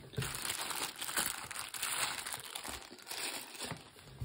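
Clear plastic wrapper crinkling and rustling as it is pulled off a new calculator, with a light knock at the start and another near the end.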